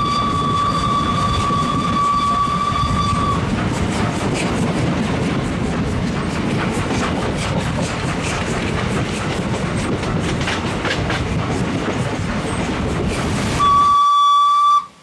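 Steam-hauled train running at speed, its wheels clattering over the rail joints, while the locomotive's whistle sounds one steady high note for about the first three seconds. Near the end the whistle sounds again, briefly and louder, then cuts off suddenly.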